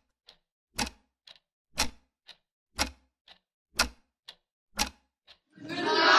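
Clock ticking: a loud tick about once a second with a softer tock halfway between. Near the end, a loud, dense sound comes in.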